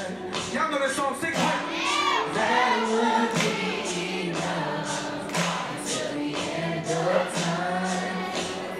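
A man and a woman singing a slow R&B love duet into microphones, over a backing track with a steady beat.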